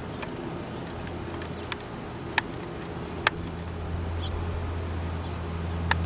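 Songbirds giving four sharp, very short chip calls and a few faint high chirps, over the low drone of a large airplane overhead that grows louder in the last couple of seconds.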